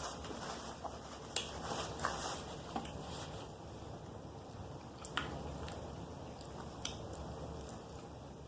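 Mouth sounds of eating fried shrimp and oysters on a po'boy: chewing and biting, with a few sharp crunchy clicks scattered through.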